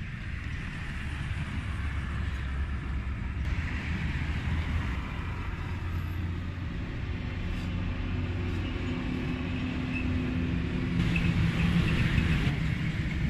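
Street traffic: a motor vehicle's engine running close by, a steady low rumble that grows louder near the end.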